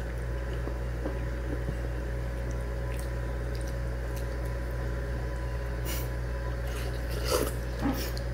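A person eating noodle soup: short slurps of rice noodles, mostly near the end, over a steady background hum.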